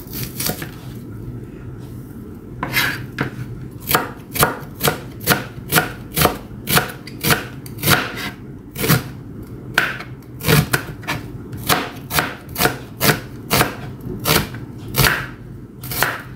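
Chef's knife slicing red onion into wedges on a plastic cutting board. A few knife strikes come first, then a short pause, then a steady run of knife strikes on the board, about two a second.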